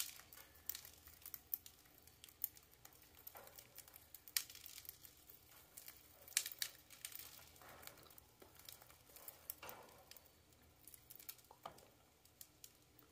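Budgerigars eating from a millet spray: faint, irregular clicks and crackles of beaks husking the seeds, with light rustling of the spray.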